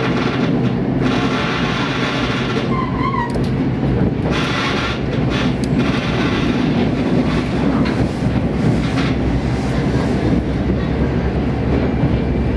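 Diesel railcar running along the track: a steady engine drone over the rumble of wheels on rail.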